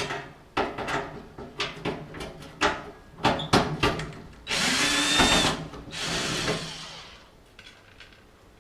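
Clicks and knocks of tools against sheet-metal dryer parts. Then a power drill-driver runs for about a second and a half with a steady whine, and a second, softer run fades out.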